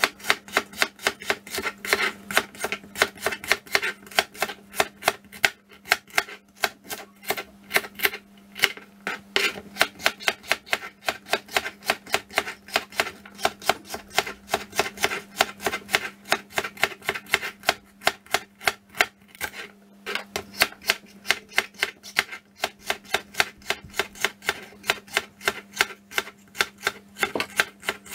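Chef's knife chopping celery on a plastic cutting board: a steady run of sharp knocks on the board, about three a second, with a few short pauses.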